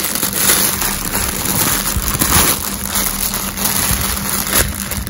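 Thin plastic packaging crinkling and rustling, the grey poly mailer and the clear plastic bag around a hoodie, handled close to the microphone.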